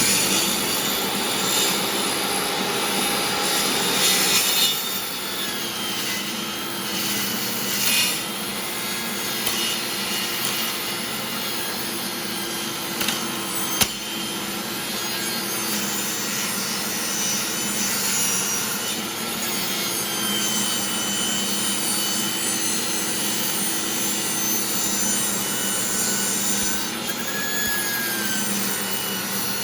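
Old DeWalt table saw running at speed with its blade raised up through a wooden blank that is turned on a lazy-Susan jig, sawing a circle: a steady, loud blade-and-motor noise with the grind of the blade cutting wood. A single sharp click about 14 seconds in.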